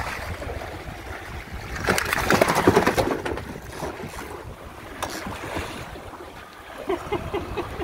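Water splashing and slapping as a gaffed fish thrashes at the surface beside the boat, loudest for about a second a couple of seconds in.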